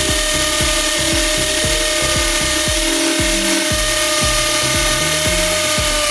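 Electric drill running at a steady high speed, a constant motor whine, over background music with a regular beat.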